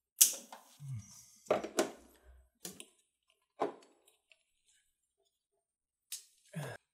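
Handling noise from pushing a rubber fuel hose onto a plastic inline fuel filter with gloved hands: scattered knocks, rubs and clicks. The loudest is a sharp knock just after the start, with more around two seconds in and a last pair near the end.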